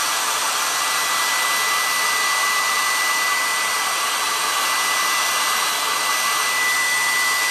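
Hand-held hair dryer running steadily, a strong rush of air with a constant high motor whine, drying freshly applied wet chalk paste.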